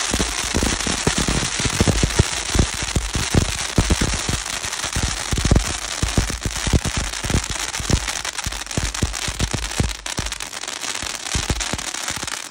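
Consumer ground fountains (safe-and-sane fireworks) spraying crackling sparks: a steady rushing hiss packed with rapid sharp crackling pops, thinning a little about ten seconds in as the fountains burn out one by one.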